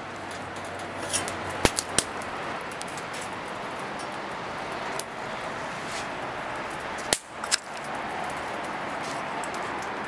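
Wood fire burning in a homemade sheet-metal tandoor-style grill, a steady rushing noise, with a few sharp clicks and knocks between one and two seconds in and two more at about seven seconds.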